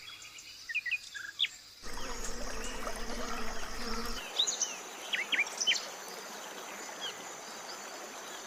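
Tropical rainforest insects keep up a steady high-pitched buzz, with short bird chirps scattered through. About two seconds in, a louder, even hiss comes in abruptly beneath them.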